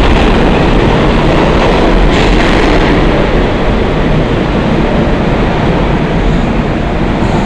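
New York City subway train running through the station: a loud, steady rail noise that eases a little after about three seconds.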